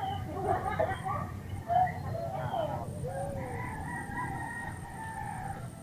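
A rooster crowing, ending in one long drawn-out held note through the second half.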